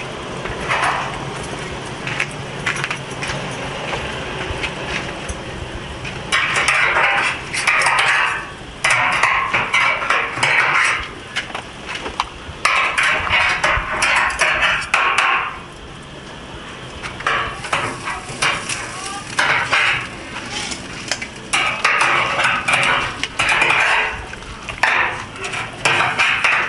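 Metal clattering and clinking in repeated bursts of two to three seconds each, from the hanging hooks and wire rack of a charcoal chicken-roasting oven knocking together as the chickens are checked.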